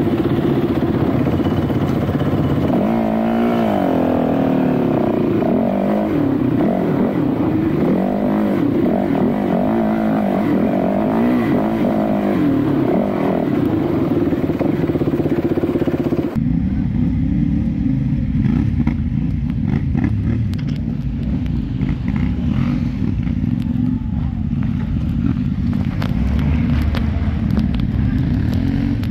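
Yamaha Ténéré 700's parallel-twin engine revving up and down as the bike is ridden over a dirt track, heard from on board. About 16 seconds in the sound cuts to a duller, lower, steady motorcycle engine rumble.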